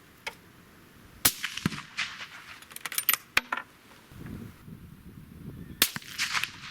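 Two shots from a Blaser R8 rifle in .308, about four and a half seconds apart, with a run of sharp metallic clicks between them.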